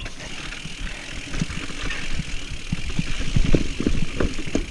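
Mountain bike rolling over rough trail: a steady rumble of tyres and frame with many short knocks and rattles, coming thicker in the last second or two.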